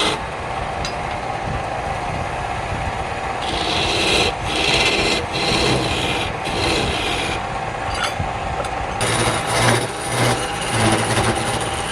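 Wood being worked on a spinning lathe: a turning tool or abrasive rasping and rubbing against the workpiece over a steady hum. The scraping grows harsher in the middle, then coarser and more uneven near the end.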